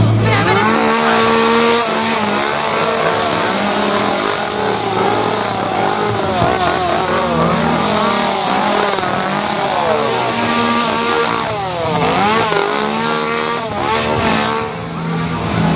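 Several small engines revving up and down at once, their pitches rising and falling and crossing over one another without a break.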